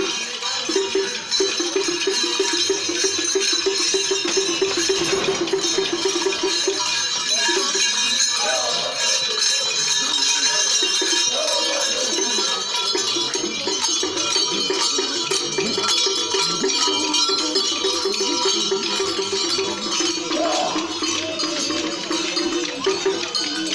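Street masquerade procession: a rapidly pulsing mid-pitched tone sounds for several seconds, stops, and comes back about halfway through, over a dense, high-pitched din.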